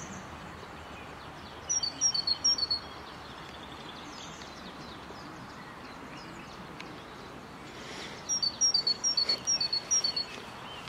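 Steady rush of river water with a bird singing a quick, high, repeated two-note phrase, once about two seconds in and again near the end.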